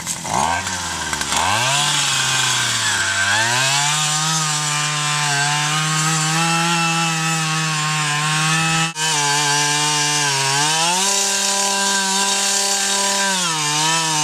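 Small two-stroke engine of a handheld gas post hole auger revving up, then running at high speed. The note breaks off for an instant about nine seconds in, and the pitch sags twice later on as the bit loads up in the clay soil.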